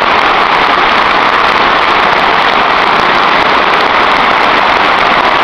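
Large football stadium crowd making a loud, steady wall of voices, heard from within the stands.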